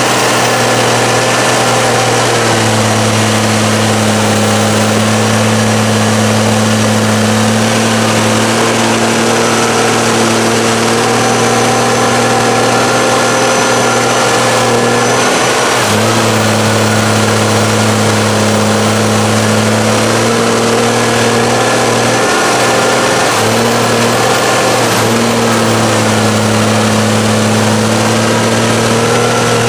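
Monster mud truck's engine held at steady high revs while bogging through deep mud. The revs dip briefly about halfway through and again a few seconds later.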